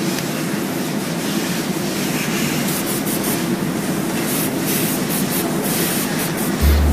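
Steady mechanical rumble with short hisses of a paint spray gun starting and stopping from about three seconds in. A deep low hum comes in just before the end.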